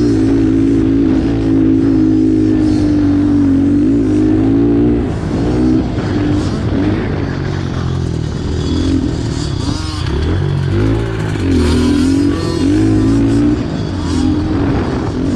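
Stock Honda CRF110F's small air-cooled four-stroke single-cylinder engine revving hard on a dirt track. It is held at steady high revs for about five seconds, then rises and falls over and over as the throttle is rolled off and back on.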